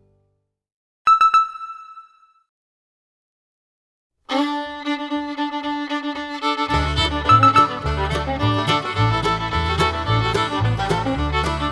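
A single short ringing chime about a second in, then silence, then background music starting about four seconds in, with a steady bass beat joining a few seconds later.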